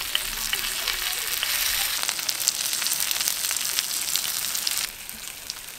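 Paneer tikka skewers sizzling in oil on a hot tawa: a steady hiss with small crackles and pops. The sizzle drops suddenly quieter near the end.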